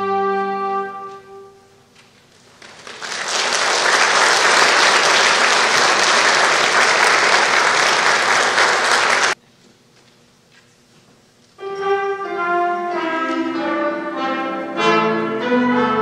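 A youth string ensemble with piano holds a final chord that dies away, followed by audience applause for about six seconds, which cuts off abruptly. After a short silence the strings and piano start the next piece.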